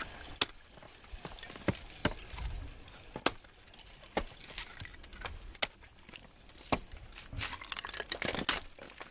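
Technical ice axes struck into waterfall ice, a string of sharp, irregular chinking strikes about once a second as the picks bite and chip the ice.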